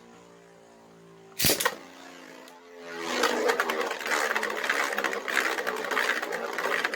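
A sharp clack about a second and a half in, then from about three seconds a dense, fast rattling and scraping: 3D-printed Beyblade spinning tops whirring and clashing against each other in a stadium.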